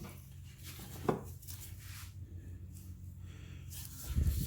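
Light handling sounds from working on the engine: a short click about a second in and a dull thump near the end, over a steady low hum.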